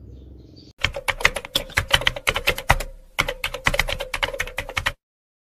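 Computer keyboard typing sound effect: a fast run of sharp key clicks that pauses briefly about three seconds in and cuts off abruptly about five seconds in.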